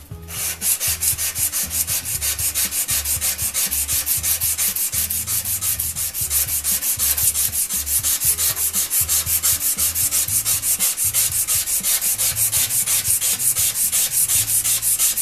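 Coarse emery paper on a wooden block rubbed hard back and forth along a rusty steel Disston buck-saw blade, a rapid, even scratching of about five strokes a second, scouring off the rust to bring up the blade's etch.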